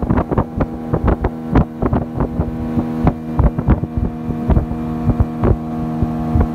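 Boat motor running steadily at a constant pitch, with many irregular sharp knocks through it. It starts and stops abruptly.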